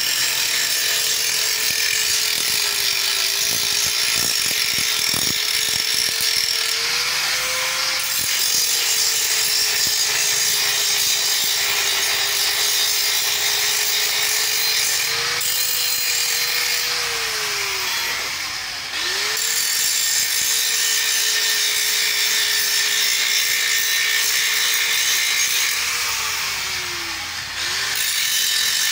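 Electric angle grinder running with a steady motor whine, its disc grinding the welded joints of a steel tube frame with a harsh scraping hiss. A few knocks sound about four to five seconds in, and twice, about two-thirds of the way through and again near the end, the whine drops in pitch and picks back up.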